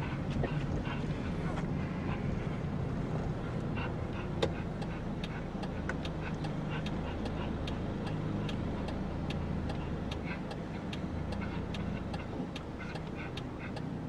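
Low, steady car engine and road rumble heard from inside the cabin, with a turn-signal indicator ticking evenly, a few ticks a second, from about four seconds in. A small dog pants lightly.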